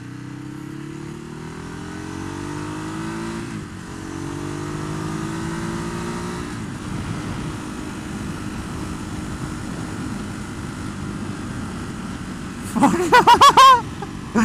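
Ducati Hypermotard 821's liquid-cooled 821 cc L-twin accelerating hard, rising in pitch through the gears with shifts about four and seven seconds in, then holding a steady cruise with wind noise. Near the end, a person's voice in a few short loud bursts.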